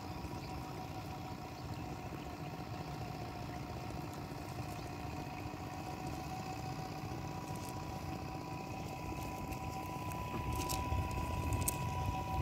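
Steady drone of an engine running at a constant speed, two even tones over a low rumble, with a few faint clicks near the end.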